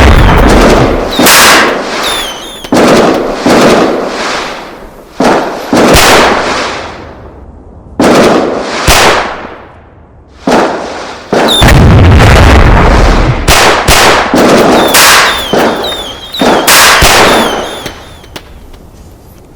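Fireworks going off: a string of about fifteen loud bangs at irregular intervals, each trailing off over a second or two, fading out near the end.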